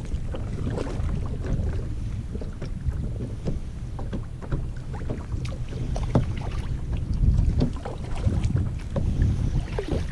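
Wind buffeting the microphone in a steady low rumble, with short splashes of a kayak paddle dipping into choppy water.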